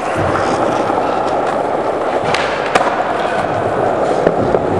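Skateboard wheels rolling steadily over a concrete floor, a continuous rumbling rush, with a few sharp clicks about halfway through and near the end.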